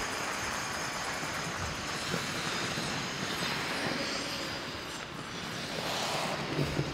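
Many figure skates' blades gliding and scraping across the ice at once, a steady hissing rush, with a few light knocks near the end.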